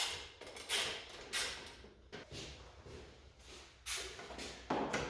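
Irregular scrapes, clicks and knocks of a motorcycle's rear seat being worked loose and lifted off by hand, in short separate bursts.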